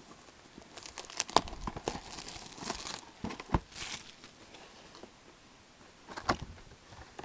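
Foil trading-card pack wrappers crinkling and tearing as packs are handled and opened, in irregular bursts of rustling and crackling clicks.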